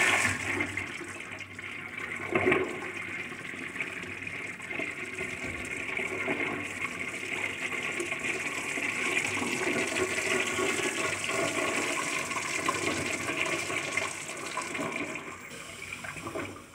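Toilet flushing: water rushing and swirling through the bowl, with a brief surge about two and a half seconds in, then a long steady rush of refill water that tapers off near the end.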